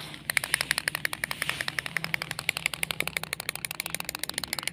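Wind-up toy chick walking: its clockwork and plastic feet make a rapid, even clicking, over a faint hum.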